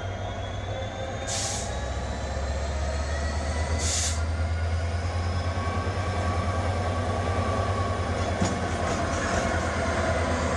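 Class 66 diesel-electric locomotive with its two-stroke EMD V12 engine running as it approaches slowly, a deep steady drone that grows louder as it draws near. Two short hissing bursts sound about a second and a half and four seconds in.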